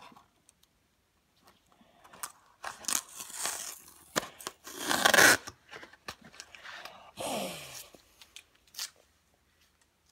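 Close-up handling noise of a phone being fixed into a makeshift head-mounted rig: several short bursts of rustling, scraping and crunching right at the microphone, the loudest about halfway through.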